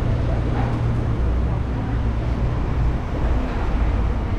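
Steady low engine rumble with no distinct events.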